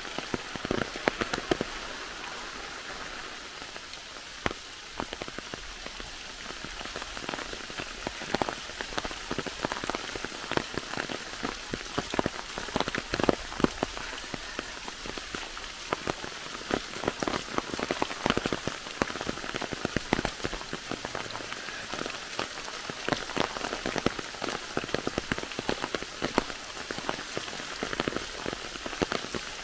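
Rain falling in a forest: a steady hiss with many separate drops ticking sharply all through.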